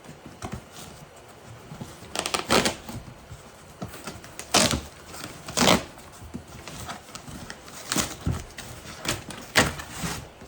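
Cardboard box being opened and handled: about eight sharp crinkles, taps and scrapes at irregular intervals.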